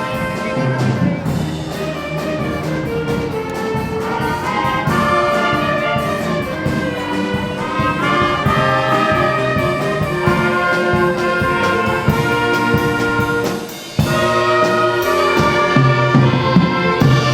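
Brass ensemble playing, with trumpets and trombones holding sustained chords that change every second or so; the music drops out briefly near the end and comes straight back in.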